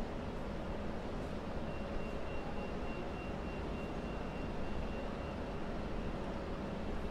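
Railway station hall ambience: a steady low rumble of trains and hall noise, with a thin, steady high tone that comes in about two seconds in and fades out a few seconds later.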